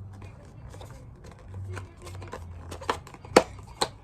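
Handling noise of small objects and packaging: light rustling with a few sharp clicks and taps, the loudest three close together in the second half, over a faint steady low hum.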